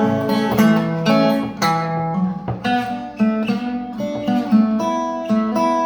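Acoustic guitar playing chords in an instrumental break between sung lines, with a steady run of plucked and strummed notes and no voice.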